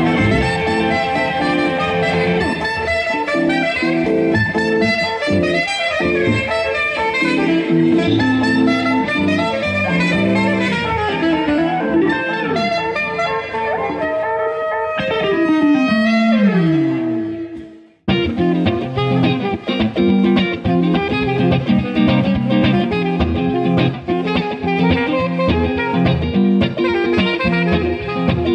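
Live band playing an instrumental groove: electric guitar and saxophone over a DJ's beat and percussion. A little past halfway the music slides down in pitch and cuts to silence. Another piece then starts abruptly.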